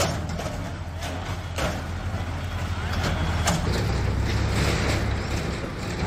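JCB backhoe loader's diesel engine running at a demolition, a steady low rumble, with a couple of sharp knocks of breaking masonry.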